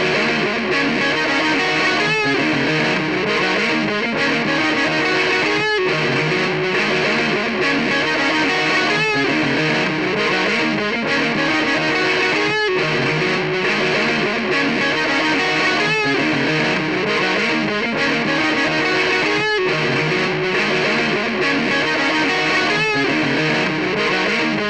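Distorted electric guitar riff played through a MOOER GE100 multi-effects unit, layered with its looper so the same phrase repeats about every three and a half seconds.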